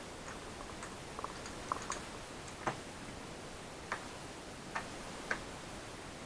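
Small, sharp clicks and taps at irregular intervals, about eight in all, the loudest a little under three seconds in: hard plastic and metal laptop parts being handled and worked with small tools during disassembly, over a steady faint hiss.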